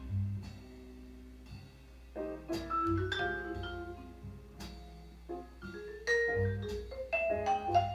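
Jazz record playing back through a valve amplifier and loudspeakers: struck, ringing mallet-instrument notes over low bass notes.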